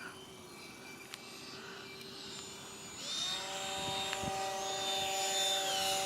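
Electric ducted-fan RC jet whining in flight, faint at first and then growing louder from about halfway in as it comes closer, its pitch shifting down slightly near the end.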